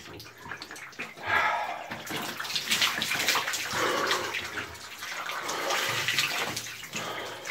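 Near-freezing water poured from a plastic bottle over a man's head and body, splashing and streaming down onto him and the shower floor from about a second in.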